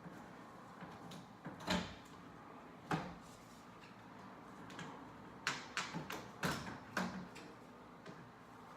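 Window being unlatched and opened: two sharp knocks, then a quick run of clacks and rattles about five to seven seconds in.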